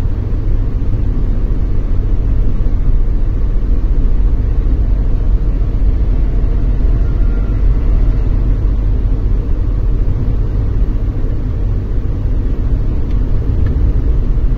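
Car cabin noise at highway speed: a steady low rumble of tyres on asphalt and the running engine.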